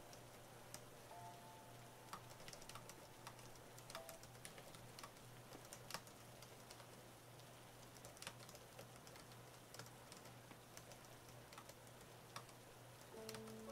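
Faint, irregular key clicks of typing on an AlphaSmart portable word processor's keyboard, over a low steady hum.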